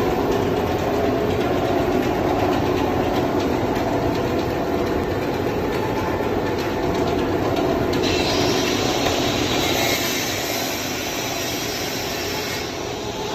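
Jigsaw puzzle breaking and bagging machine running: a loud, steady mechanical din from its motors and conveyors, with a higher hiss joining about eight seconds in.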